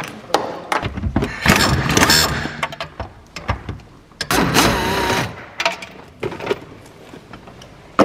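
Pneumatic impact wrench running in two bursts, about a second in and again near the middle of the clip, undoing fasteners under a car's dashboard. Short metallic clicks and knocks of tools and parts come between the bursts.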